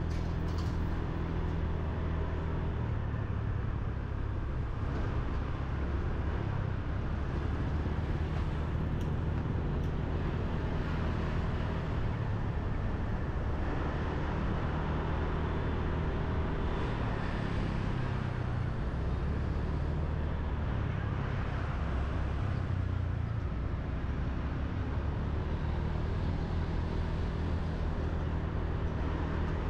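Motorbike engine running steadily at low riding speed, heard from the rider's seat, with road and traffic noise around it.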